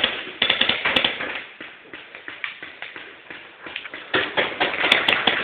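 Paintball markers firing in rapid volleys of sharp pops. One volley comes at the start, then scattered shots, then another loud volley from about four seconds in.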